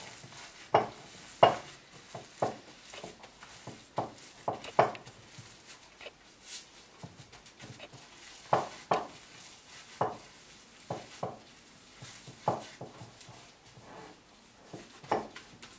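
Fish cake paste being kneaded by hand in plastic gloves in a ceramic bowl, giving irregular short squelches and slaps, about one or two a second. The paste is worked like bread dough to press the air out of it.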